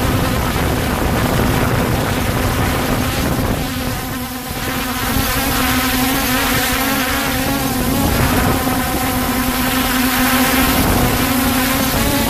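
Holy Stone HS700 quadcopter's motors and propellers buzzing steadily in flight, heard close up from the camera mounted beneath it, over a low rumbling noise. The buzz dips briefly about four seconds in.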